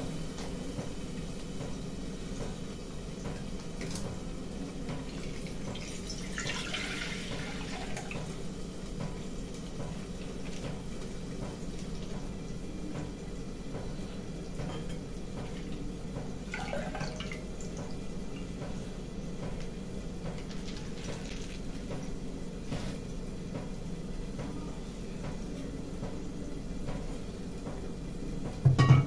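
Liquid poured from a plastic packet into a steel pot, a short splashing stretch about six seconds in, over a steady low background hum. A loud low thump comes near the end as the pot is handled.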